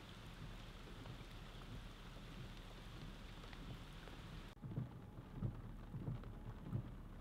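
Steady rain falling onto a flooded street and pooled water. About four and a half seconds in, the sound changes abruptly: the hiss thins, and short low thumps come at irregular intervals about half a second to a second apart.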